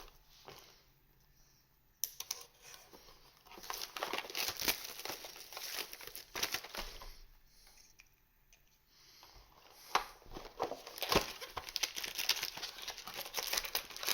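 Plastic wrapping of z/x trading card packs being torn open and crinkled by hand, in two spells: the first starts sharply about two seconds in, and after a short pause the second runs on near the end with sharper crackles.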